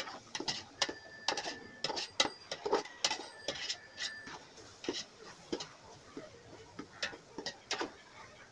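Metal slotted ladle clinking and scraping against an aluminium pot as thick biryani masala is stirred to keep it from sticking to the bottom: irregular sharp clicks, several a second in the first half and sparser later. A faint high steady whine sounds under the first half.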